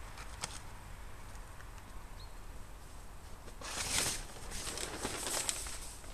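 A tarpaulin cover rustling as it is dragged off a hedge cutter, loudest about four seconds in, with crackling after it.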